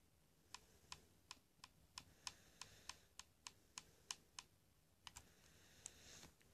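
Faint computer keyboard key presses: a steady run of about three taps a second for four seconds or so, then a few more single taps near the end.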